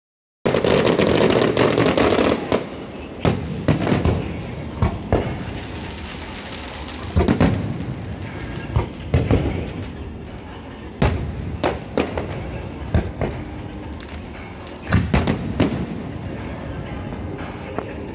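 Aerial fireworks display: a dense, loud stretch of crackling and booming shell bursts for the first couple of seconds, then sharp single and paired bangs about once a second.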